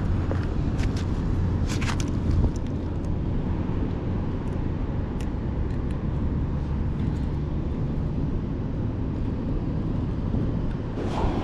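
Steady low outdoor rumble, with a few sharp clicks and rustles about one to two seconds in.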